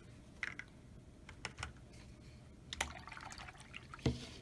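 Faint scattered clicks and brief rustles of watercolor supplies being handled, then a paintbrush dipped into a plastic water cup with a sharp knock against it near the end.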